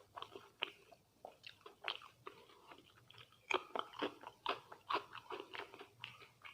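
Close-miked sounds of a person eating: chewing and biting food, heard as many short crackly clicks that come thickest in the second half.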